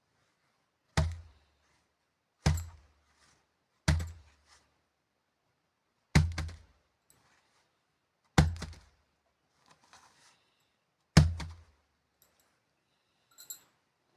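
Six dull thumps at uneven intervals of about one to three seconds, each with a deep low end and a quick fade.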